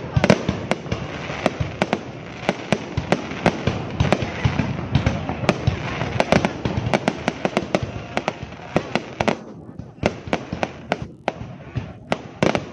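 Aerial fireworks bursting overhead: a dense string of bangs and crackles, several a second, over a steady hiss, thinning for a moment near the end.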